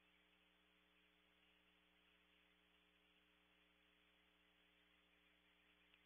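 Near silence: a faint steady electrical hum with hiss.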